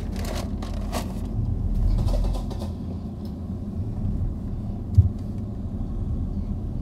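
Low rumble of a car's engine and road noise heard inside the cabin as the car moves slowly, swelling briefly about two seconds in. Paper bag rustling in the first second, and a single sharp thump about five seconds in.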